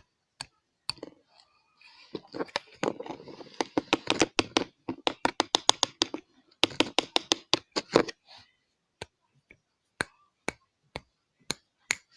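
Rapid light knocking and tapping of a plastic glue bottle against a small plastic container as the last of the glue is shaken out, a burst of several seconds in the middle. A faint even tick about twice a second runs beneath it.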